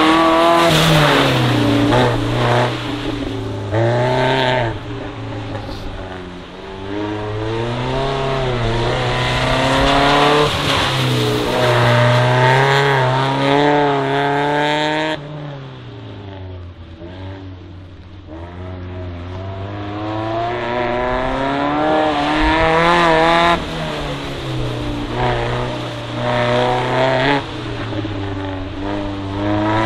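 First-generation Mazda MX-5's four-cylinder engine revving up and falling back again and again as it is driven hard through a slalom, over a hiss of tyres on wet asphalt. About halfway through the sound drops away suddenly, then builds back up as the car accelerates again.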